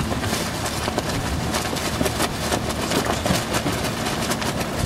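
Wind buffeting the microphone and water rushing past a boat moving over choppy water: a loud, irregular, gusty rush.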